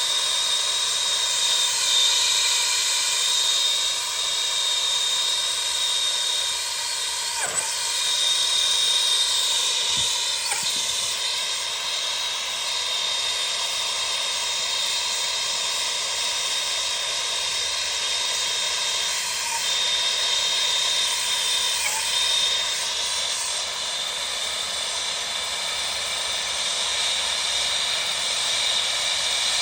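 Gas torch flame running steadily with a hissing roar, heating the probe of a temperature-and-pressure relief valve that stays shut past 220 degrees, which the plumber takes for a seized valve.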